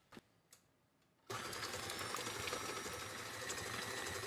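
A couple of faint clicks, then a KitchenAid stand mixer fitted with a beater blade attachment switches on about a second in and runs steadily, mixing eggs into creamed butter and sugar.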